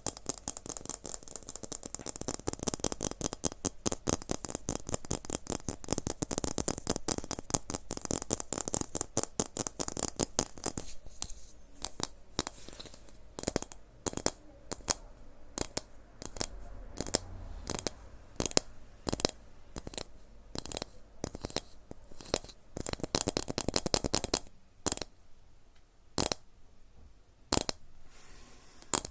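ASMR trigger sounds: a dense run of fast rattling clicks for about ten seconds, then separate sharp clicks spaced about a second apart, with one more short rattling burst near the end.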